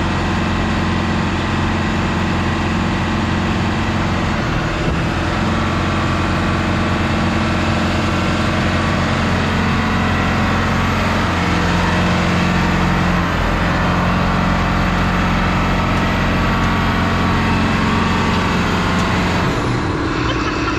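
Short school bus engine held at high revs in a burnout, the rear tyre spinning on concrete. The engine note shifts slightly partway through, and the sound drops off suddenly near the end.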